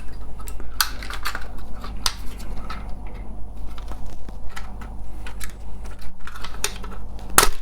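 Scattered small plastic clicks and knocks from a Volvo V70 door lock unit being worked apart by hand as a plastic guard is prised off its clips, with the loudest snap near the end, over a steady low hum.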